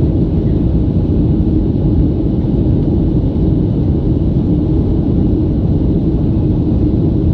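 Steady cabin roar of a Boeing 737-500 in flight: the CFM56-3 turbofan engines and rushing airflow heard from a window seat, a deep, even rumble that does not change.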